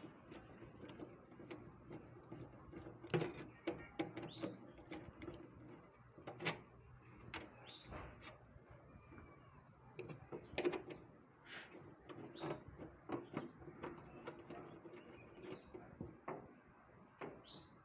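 Irregular clicks and knocks over a faint steady hum, with a few short high chirps.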